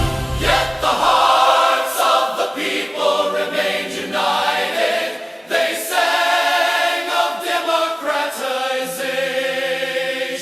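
Soundtrack music: a choir singing sustained notes.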